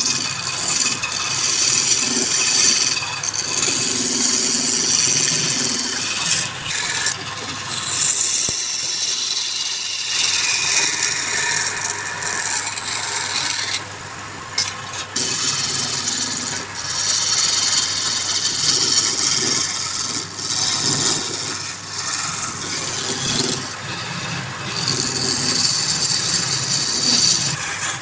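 Woodturning gouge cutting a workpiece spinning on a wood lathe: a rough scraping, shaving noise that surges and eases every few seconds as the tool bites and lifts, with a short lull about halfway through.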